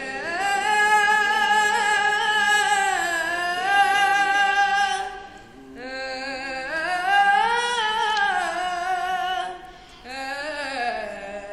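A boy singing solo and unaccompanied, a prayer melody in long held phrases with wavering, ornamented notes; he breaks off briefly about five seconds in and again near the end.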